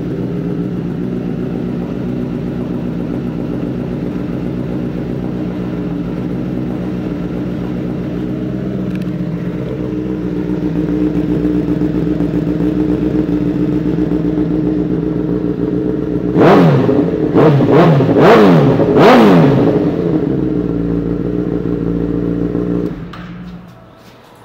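2012 Honda CBR1000RR's inline-four engine idling steadily through a Two Brothers aftermarket exhaust, then blipped several times in quick succession, each rev rising and falling sharply. The engine is switched off near the end.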